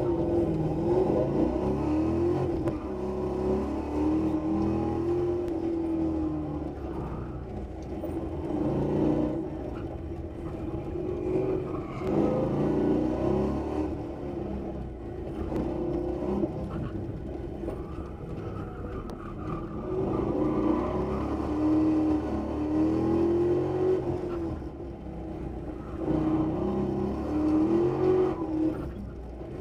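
Ford Mustang's engine heard from inside the cabin, revving hard and easing off again and again through an autocross run, its pitch rising and falling every few seconds.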